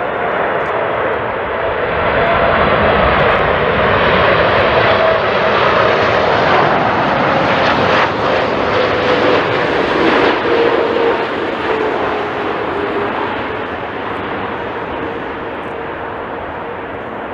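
A jet airliner passing close by as it comes in to land. The engine noise swells, stays loud for several seconds, then slowly fades, and a whining tone slides down in pitch as the aircraft goes by.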